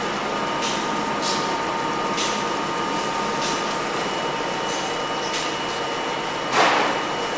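Steady hum and rush inside an R32 subway car, with a few faint steady whine tones and short faint hisses. A brief louder hiss comes about six and a half seconds in.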